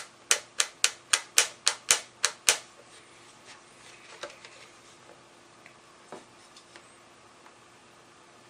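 Knife blade scoring the hard plastic back of an iPad 2 case: a quick run of about ten sharp scratching clicks, around four a second, then a few scattered faint ticks as the strokes stop.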